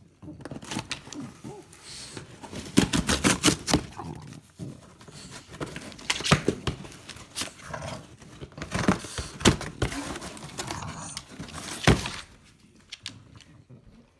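French bulldog ripping and biting a corrugated cardboard box: bursts of tearing and crackling cardboard with knocks as it pulls at the flaps, one loud snap near the end before it quiets.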